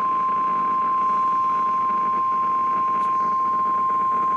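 NOAA Weather Radio 1050 Hz warning alarm tone: a single steady high-pitched tone over faint radio hiss. It is the tone that switches on weather alert receivers, sounded here as part of the required weekly test.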